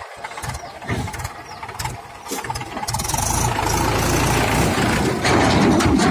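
A diesel engine running unevenly, growing louder and steadier about halfway through.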